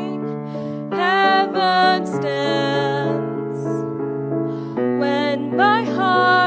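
A woman singing a slow solo song in held, bending notes, accompanied by a grand piano. The piano carries on alone for about a second between her phrases, roughly two thirds of the way through.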